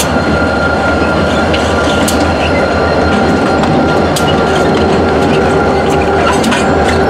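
Freight train rolling past, loud and steady, with sharp irregular clicks from the wheels over the rail.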